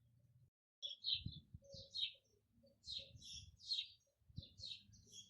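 Small birds chirping in a quick run of short, high notes, starting just under a second in after a brief break in the sound, with faint low thumps underneath.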